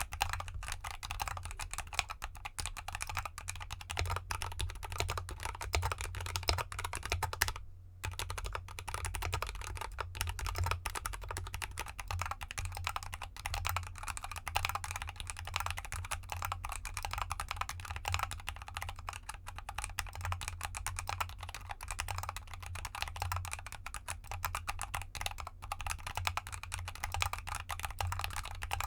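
Fast, continuous typing on a GK64X mechanical keyboard with Gateron CAP Gold linear switches and XDA keycaps in an anodized aluminium case, a dense run of key clacks. It breaks off briefly about eight seconds in.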